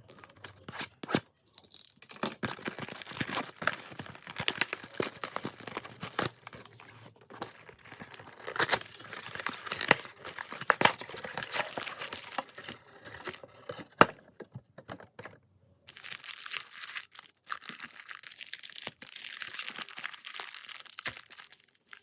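Plastic wrapping on a trading-card box being torn open and crinkled by hand, an irregular run of crackling and small clicks with a short pause about two-thirds of the way through.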